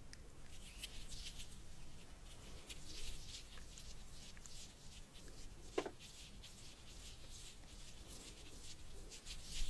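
Close-miked ASMR triggers: a scatter of soft, crisp crackles and clicks, with one sharper click about six seconds in.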